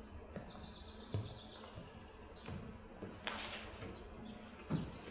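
Quiet stage pause: a faint high-pitched whine, a brief rustle about three seconds in and a soft thump near the end.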